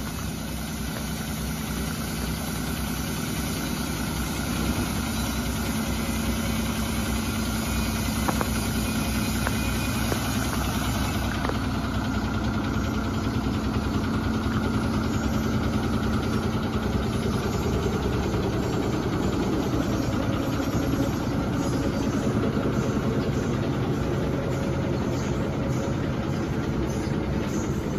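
Ashok Leyland multi-axle truck's diesel engine idling steadily.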